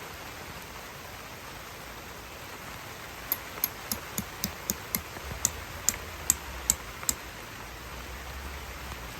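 Steady rain hiss, with a run of about a dozen sharp, irregular taps between about three and seven seconds in.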